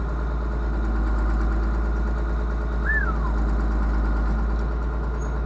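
John Deere tractor engine running steadily under load, heard inside the cab, driving a forage harvester that is chopping corn into a silage wagon. A short falling whistle comes about three seconds in.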